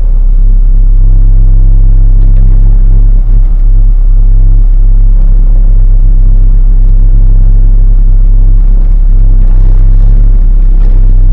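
Diesel engine of heavy farm machinery running steadily at constant speed close by, a loud low drone.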